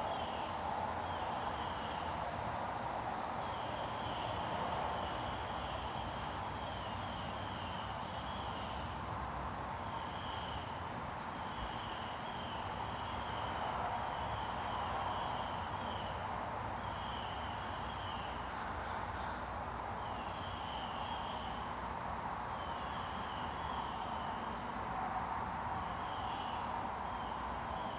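Rural outdoor ambience: short pulsed chirping trills repeat every second or two over a steady hum of distant traffic.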